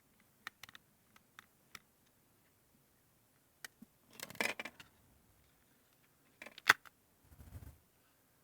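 Small clicks, a brief scrape and one sharp click of plastic razor parts and screws being handled as a Remington electric razor is taken apart by hand, ending with a soft low thump.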